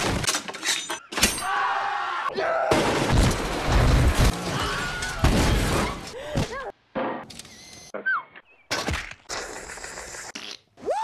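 Rapid-fire montage of film sound effects: a string of sharp crashes and shattering, then a loud rumbling blast of noise, followed by short rising-and-falling cries and further bursts of noise, separated by abrupt cuts.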